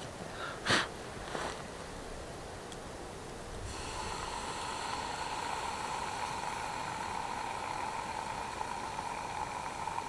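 A short sharp noise about a second in, then, starting suddenly about four seconds in, a steady hissing sizzle from a burning wood ember plunged into water in a steel camp mug to make ember-heated coffee.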